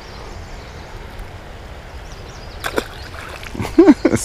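Shallow river current rippling and rushing steadily. Near the end come a few short, sharp noises as the hooked bass is handled and let go into the water, and a brief grunt from the angler.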